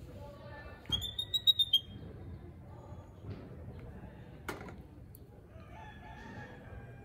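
Baby monkey giving a quick run of about six high-pitched squeaks about a second in, over fainter calls in the background.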